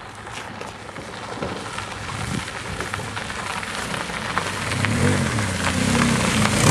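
A half Saab car, cut off behind the front seats and running on a small rear caster wheel, driving on a gravel track: tyres crunching over gravel, growing louder as it approaches. From about five seconds in, its engine revs rise and fall.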